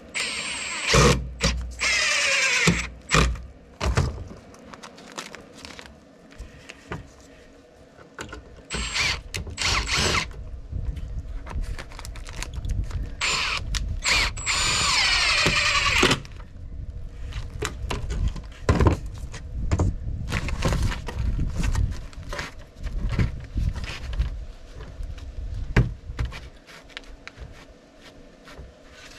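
Cordless drill driving screws into plywood in several bursts of a few seconds, the longest near the middle, the motor pitch sliding down in the first one as the screw bites. Short clicks and knocks of handling come between the bursts.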